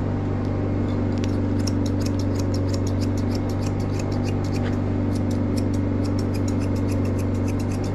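Grooming scissors snipping through a dog's coat in quick, even strokes, about five snips a second, pausing for a moment near the middle. A steady low machine hum runs underneath.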